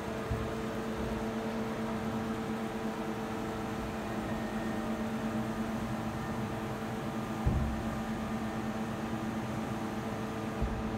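Doosan Puma 480XL CNC lathe running with a steady two-tone mechanical hum while its carriage traverses along the Z axis back toward its reference position. There are two brief thumps, one about seven and a half seconds in and one near the end.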